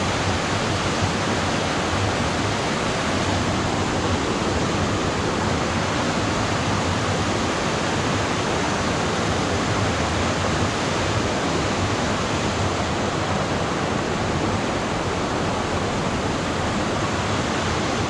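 Steady, unbroken rushing of a waterfall and its stream cascading over large boulders.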